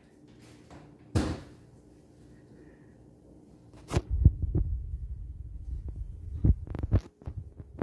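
Handling noise on a phone's microphone: low thumps, rubbing and knocks as the phone is picked up and moved about by hand, starting about four seconds in. There is a brief knock about a second in.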